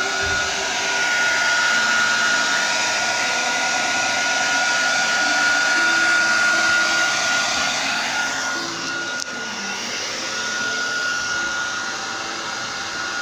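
Handheld heat gun blowing hot air steadily over freshly screen-printed T-shirts to dry the ink: a rushing hiss with a thin steady motor whine. It dips briefly about nine seconds in.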